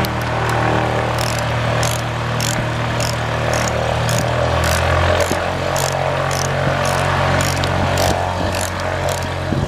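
A light aircraft's propeller engine running in the background, a steady low drone whose pitch shifts briefly about halfway through. Over it, sharp clicks come about twice a second from a ratchet torque wrench working on the brake caliper bolts.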